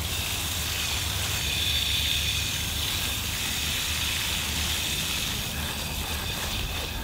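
Water spraying from a garden hose watering wand onto the soil at the base of a hydrangea, a steady hiss over a low rumble.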